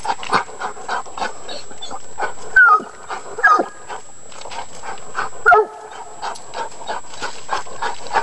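Coonhound barking treed at the foot of a tree, the bark that signals its quarry is up the tree. It gives three loud barks, each falling in pitch, a second or two apart, with short rattles and scrapes between them as it rears against the trunk on its chain.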